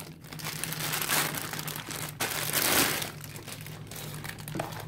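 Clear plastic wrapping crinkling and rustling as hands handle it and pull it open, loudest about two and a half seconds in.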